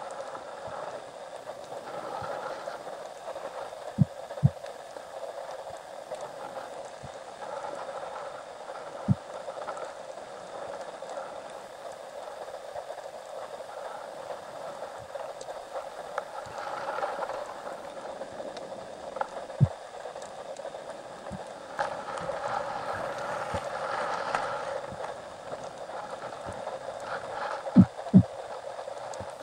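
Underwater ambience heard through a camera housing: a steady muffled rushing hiss, broken by a few short dull knocks, two of them close together near the end.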